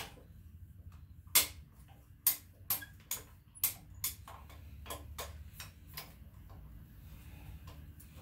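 A hand wrench working on an AMC 4.2-litre inline-six engine: a string of sharp metallic clicks about half a second apart. They are loudest in the first few seconds and grow weaker until about six seconds in.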